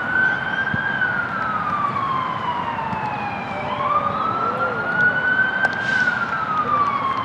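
A wailing siren, rising in pitch, holding, then slowly falling, twice over.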